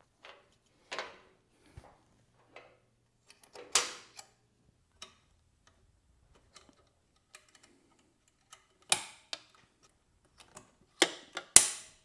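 Exhaust springs being stretched with a hooked spring-puller and snapped onto the tabs of the exhaust pipe joints: scattered sharp metallic clicks and clinks, some ringing briefly. The loudest come about four seconds in, about nine seconds in, and twice near the end.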